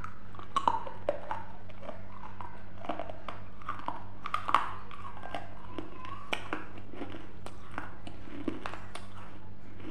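Close-up chewing of grapes: wet squishing and crunching with short mouth clicks, sharpest in the first second and about four and a half seconds in, over a steady low electrical hum.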